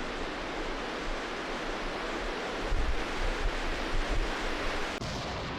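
Steady rushing noise of flowing floodwater, with louder low rumbling gusts in the middle.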